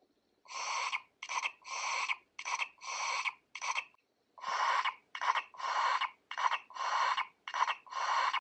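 Little Live OMG! Pets toy puppy's electronic drinking sound as its bottle is held to its mouth: rhythmic breathy sucks, a longer one then a short one, about once a second, with a short break about four seconds in.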